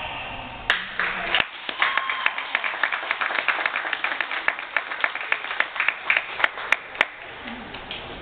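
Scattered applause from a small audience: individual hand claps, sharp and distinct rather than a dense roar, starting about a second in and dying away near the end.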